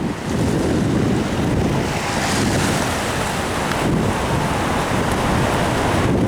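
Ocean surf washing on a beach, with steady wind rumbling on the microphone.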